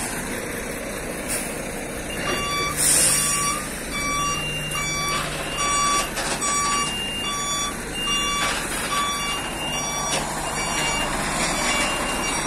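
Heavy truck's reversing alarm beeping about twice a second over its diesel engine running; the beeping stops about ten seconds in. A short, loud hiss of air comes about three seconds in.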